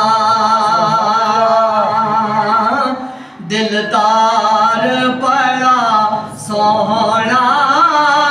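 A man reciting a naat unaccompanied, a single voice drawing out long, wavering, ornamented notes. He breaks off briefly for breath about three seconds in and again a little after six seconds.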